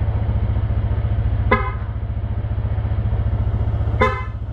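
Aftermarket PIAA Auto Style electric horn on a Yamaha NMAX 155 scooter sounding two short toots, about a second and a half in and again near the end. It is loud, much louder than the stock NMAX horn. Under the toots, the scooter's engine idles steadily.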